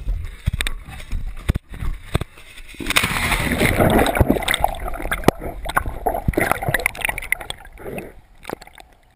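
Lake water sloshing and gurgling around a camera at the surface and underwater, with irregular sharp knocks. The sound is denser and busier through the middle, then fades near the end.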